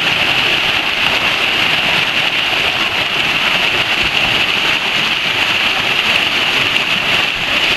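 Creek water rushing steadily down a natural rock water slide, a constant loud hiss of cascading white water.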